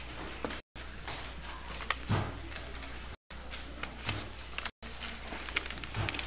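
Sheet of paper rustling and crackling in short, scattered crinkles as it is folded and creased by hand, with a few soft knocks of hands pressing on the table over a steady low hum. The sound cuts out briefly a few times.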